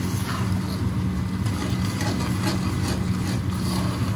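Steady low machine hum with a constant pitch, as in a commercial kitchen. Underneath it, a metal ladle faintly scrapes as it stirs thick red lentils in an aluminium saucepan.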